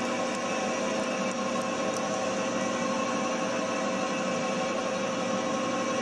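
Milling machine spindle running steadily in reverse to back a power-driven tap out of a freshly threaded through-hole: an even motor hum with a few constant tones.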